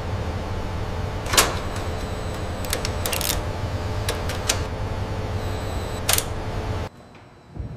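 Steady low industrial hum with a few faint steady tones, broken by scattered sharp mechanical clicks and clacks, the loudest about a second and a half in. The hum cuts off suddenly near the end.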